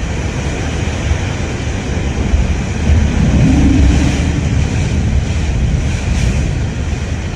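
Cyclone-force wind blowing against the microphone: a loud, steady low rumble with a hiss over it.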